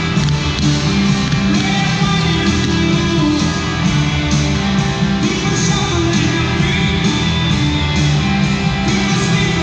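Rock music with a singer and guitars, playing steadily and loud.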